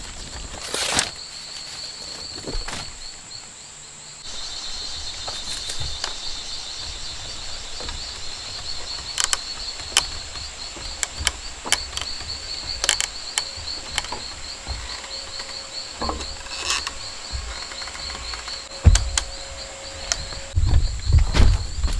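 Rainforest insects trilling steadily, a fast-pulsing high chirp over a thin high steady tone. Scattered sharp clicks and knocks run through it, with heavier thumps near the end.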